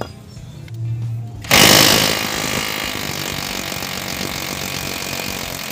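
Cordless impact wrench hammering on the spindle nut of a car's rear wheel hub. It starts suddenly about a second and a half in, loudest at the onset, and then runs on in a steady rapid rattle.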